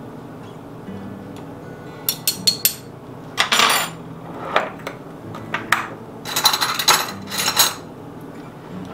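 Glass jars and metal measuring spoons clinking and clattering as dry ingredients are measured out. A quiet start, then scattered clinks and short rattles from about two seconds in, thickest near the end.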